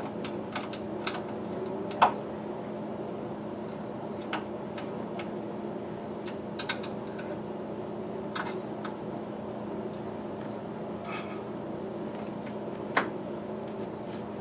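Scattered small clicks and knocks of hand work with tools and parts, the loudest about two seconds in and again near the end, over a steady hum.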